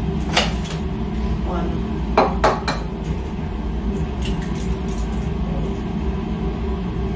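An egg tapped against the rim of a mixing bowl to crack it: one click, then three quick sharp taps about two seconds in. A steady low room hum lies underneath.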